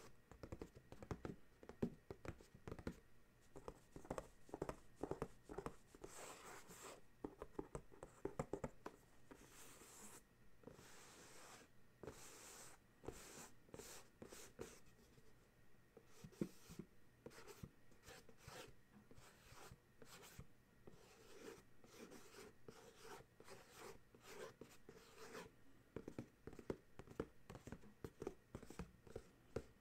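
Fingertips and fingernails tapping, tracing and scratching on a cardboard box: quiet, irregular soft taps mixed with short scratchy strokes.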